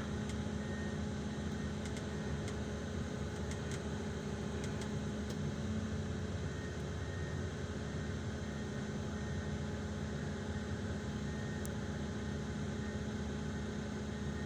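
Excavator's diesel engine running steadily, a constant low hum with a few faint ticks.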